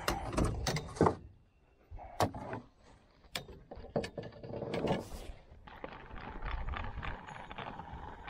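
Fishing reel being cranked while a hooked fish is played, its gears giving a run of fine rapid clicks, with a few sharp knocks of rod and reel handling in the first few seconds.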